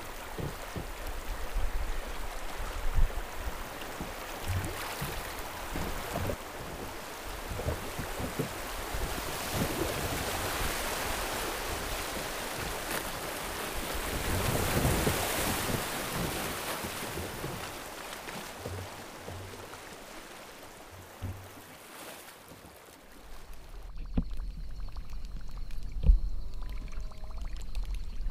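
River water rushing around a kayak running a riffle, with scattered knocks against the boat. The rush swells to its loudest about halfway through, then fades. About 24 seconds in it gives way abruptly to a much quieter sound with a low rumble and a faint steady high tone.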